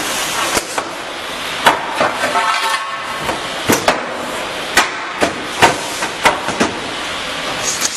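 Irregular knocks, about ten of them at uneven spacing, as mould parts are fitted onto a wall panel making machine, over a steady hiss of workshop machinery. A short ringing tone sounds a little over two seconds in.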